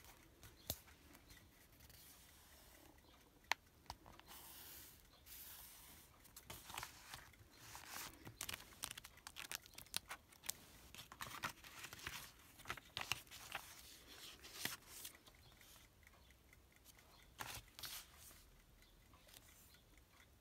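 Glossy paper magazine pages being turned and handled by hand: faint rustles and swishes of paper, with small sharp clicks and taps at irregular moments.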